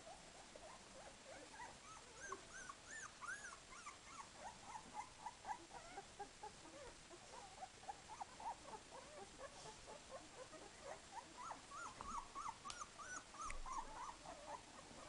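Twelve-day-old Dalmatian puppies squeaking and whimpering in a continuous string of short, high-pitched cries, several overlapping, busier from about two seconds in.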